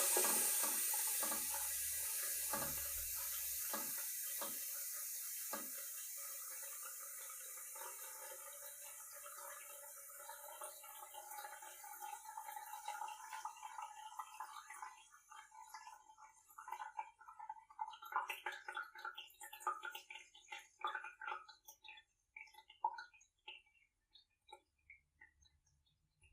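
Toilet cistern refilling after a flush: the water hiss fades steadily as the tank fills, then about fifteen seconds in it gives way to scattered trickles and drips as the fill valve closes.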